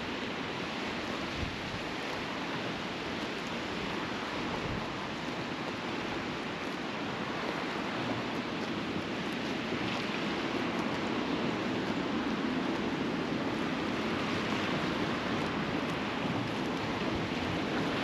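Steady wash of sea waves mixed with wind, growing slightly louder in the second half.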